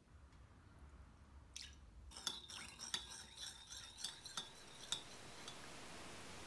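Metal measuring spoon stirring a soy-and-vinegar marinade in a ceramic bowl, clinking against the bowl's side in a quick run of ringing taps starting about two seconds in.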